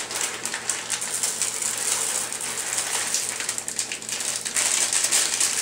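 Chocolate chips being poured out of a plastic bag into a mixing bowl: a dense, continuous rattle of many small pieces sliding and falling.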